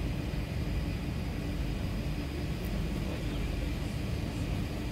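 Steady cabin noise inside an Airbus A380 on the ground: a low rumble with a faint steady hum and a thin high whine.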